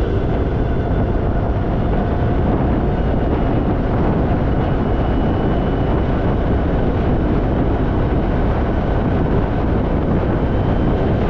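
Harley-Davidson Fat Boy's V-twin running steadily at riding speed, mixed with constant wind rush over the microphone.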